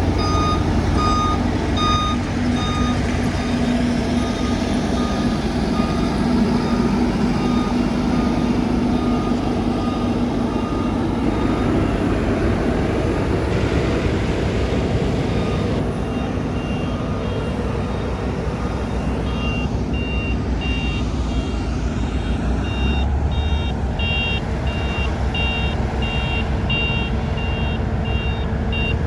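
Heavy construction vehicles running, with reversing alarms beeping about twice a second. A lower-pitched alarm beeps through the first half and fades, and a higher-pitched alarm starts about two-thirds of the way in.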